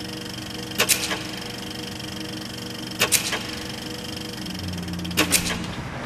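Intro sound design: a steady hum of held tones, broken about every two seconds by a quick cluster of two or three sharp clicks. A deeper tone joins the hum near the end.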